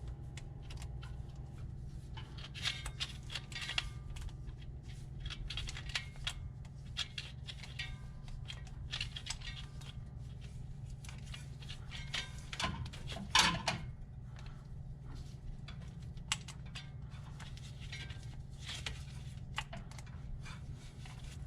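Hand tools and metal parts being handled while fastenings are tightened: irregular small clicks, taps and scrapes, with a louder clatter about 13 seconds in, over a steady low hum.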